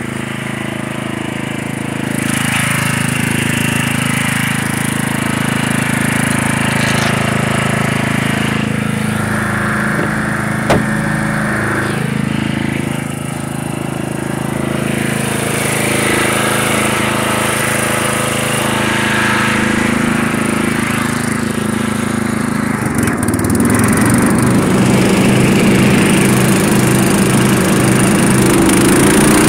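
Murray lawn mower's engine running steadily while the mower picks up leaves, with one sharp click about eleven seconds in. About two-thirds of the way through, the engine note changes and grows a little louder.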